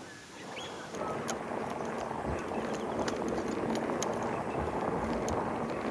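Priority 600 ADX touring bicycle rolling along the road: steady tyre and wind noise, starting about a second in, with light ticks a few times a second.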